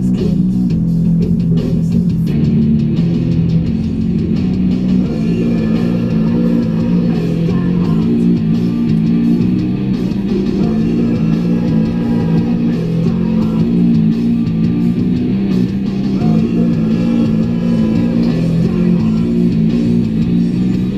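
Rock music with guitar and bass guitar.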